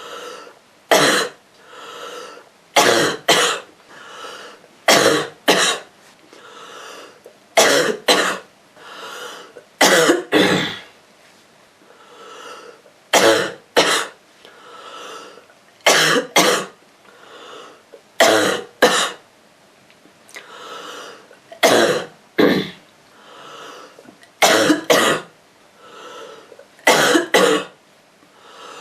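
A girl's rough cough from a cold, coming mostly in quick pairs of coughs about every two and a half to three seconds, with softer, longer sounds between them.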